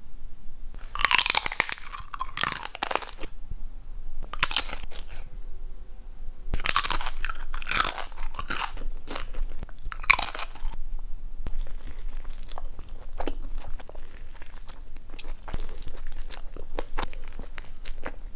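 Tortilla chips crunching as they are bitten and chewed, in several loud crisp bursts through the first eleven seconds. After that come quieter chewing and small mouth clicks.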